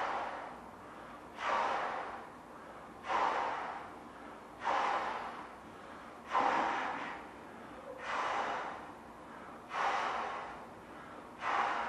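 Heavy, rhythmic breaths of a person blowing up a large balloon by mouth: a rush of breath about every second and a half, seven in all, each starting sharply and fading away.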